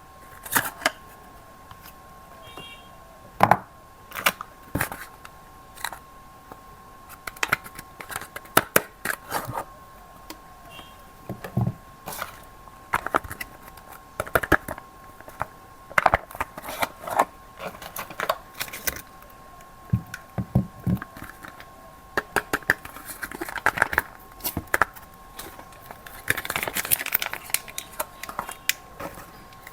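Soap bars being unpacked by hand: wrappers crinkle and tear, with scattered sharp taps and clicks, and a denser run of crinkling near the end. A faint steady tone at two pitches runs underneath.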